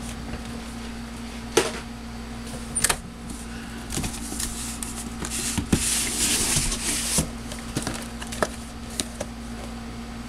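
Cardboard model-kit boxes being handled inside a cardboard shipping box: scattered sharp taps and knocks, with a rustling, scraping slide of cardboard on cardboard about halfway through.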